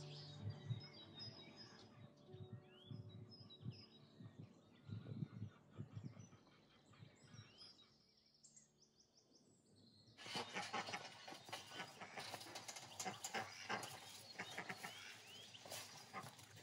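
Birds chirping and calling. Soft low thuds come through in the first half. The sound nearly drops away around eight seconds in, then returns fuller, with busier chirping, about two seconds later.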